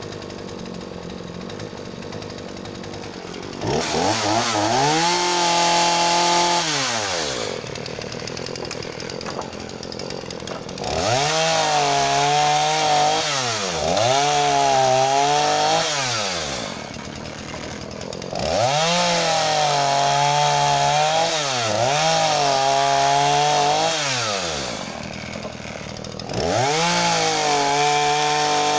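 Husqvarna 236e two-stroke chainsaw idling, then revved to full throttle again and again as it cuts through firewood logs. Between cuts it drops back to idle.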